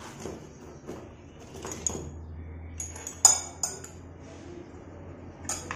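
Metal parts of a Suzuki Raider 150's rear brake clinking and tapping as new brake pads and their pins are fitted into the caliper by hand: a handful of short sharp clinks, the loudest about three seconds in.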